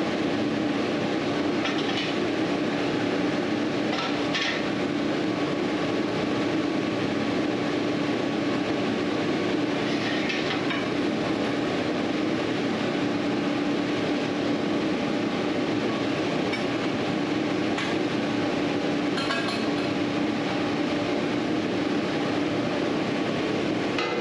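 Steady droning hum with one constant low tone, broken by a few short, light clinks spread through it.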